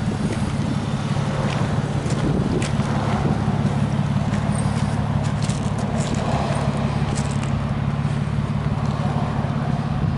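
Nissan Skyline GTS-t Type M's turbocharged RB20DET straight-six idling steadily through an aftermarket muffler, with no revving.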